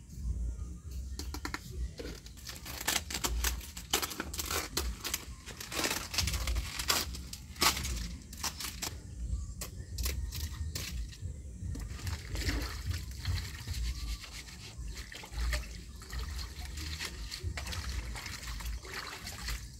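Water being poured and splashed by hand as peeled arrowroot tubers are rinsed in a metal pot and banana leaves are washed in a plastic basin, with irregular splashes and knocks over a low rumble.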